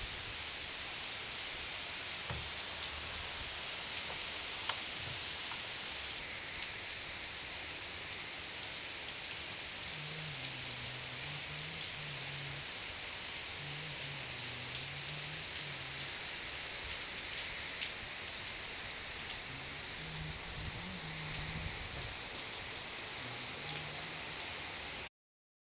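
Heavy downpour: rain pouring down with a steady hiss, and single drops ticking sharply close by. It cuts off suddenly near the end.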